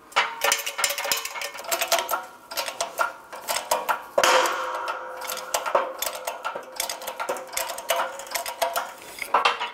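Shop press forcing a 2006–2011 Honda Civic front wheel bearing out of its steering knuckle: rapid metallic clicking and creaking as the metal gives under load. A sharp metallic crack about four seconds in is followed by ringing, as the bearing breaks loose and starts to move.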